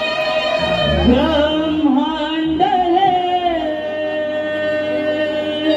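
Singing of a devotional gan, a Konkan folk invocation to Ganesh: a voice glides through an ornamented melodic phrase over a held instrumental note.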